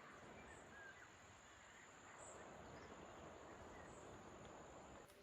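Near silence: faint rural outdoor ambience, a steady high-pitched insect trill with a few faint bird chirps.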